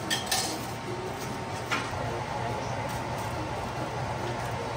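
Silicone spatulas lifting and moving steamed buns in an aluminium steamer pot, with a few light knocks against the pot near the start and once more about two seconds in, over a steady hiss.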